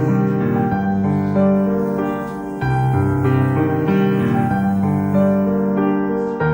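Background music: soft piano or electric keyboard playing sustained chords that change about once a second.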